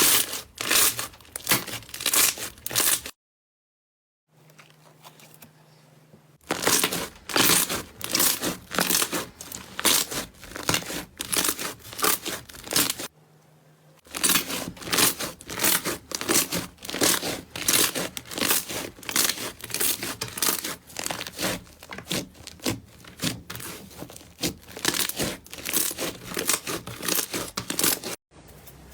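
Slime being squeezed and pressed by hand, giving repeated sharp crackling pops, about two or three a second. The pops come in stretches, with a silent break a few seconds in and a short one about halfway through.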